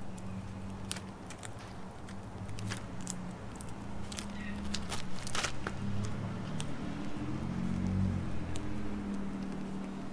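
Eastern gray squirrel eating bird seed and nuts: sharp, irregular crunching clicks as it cracks seeds and shells. Underneath is a low steady hum that swells in the middle.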